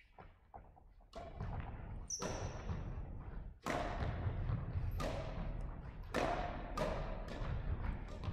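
Badminton rally: sharp racket strikes on the shuttlecock about once a second with thudding footfalls on the wooden court floor, echoing in a large sports hall. The rally picks up about a second in.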